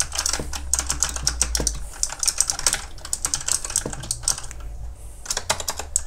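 Fast typing on a Razer Huntsman opto-mechanical gaming keyboard: a rapid run of super loud key clicks, with a brief lull about four and a half seconds in.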